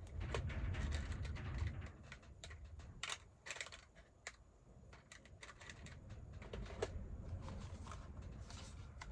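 Paper and small craft supplies being handled on a work table: a run of light rustles and small clicks and taps, over a low rumble that is stronger in the first couple of seconds.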